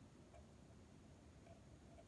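Near silence with a few faint ticks of a hook pick working the spool pins inside a padlock's cylinder.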